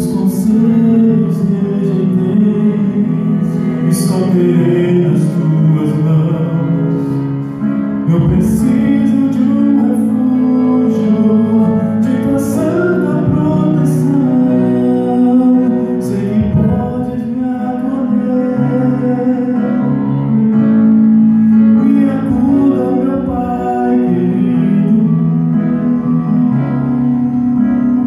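A man singing a Portuguese-language gospel song into a handheld microphone, amplified through a PA, over an instrumental backing track with long held notes.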